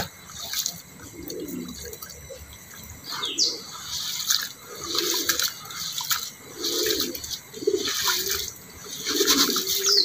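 Hands stirring and rubbing corn kernels in a basin of water to wash off the dirt. A wet, grainy sloshing swish repeats about once a second.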